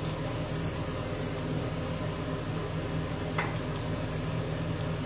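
Steady low hum and hiss of a fan motor running, with one faint click about three and a half seconds in.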